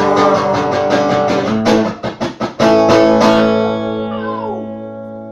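Guitar strummed in a steady rhythm, with a few choppy muted strokes about two seconds in, then a final chord left to ring and fade out.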